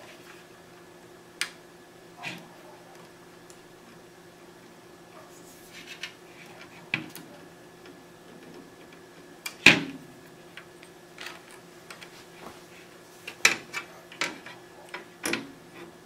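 Scattered clicks, taps and knocks of a 3.5-inch hard drive and its cables being handled and set into an open metal DVR chassis, the loudest knock about ten seconds in and a run of clicks near the end.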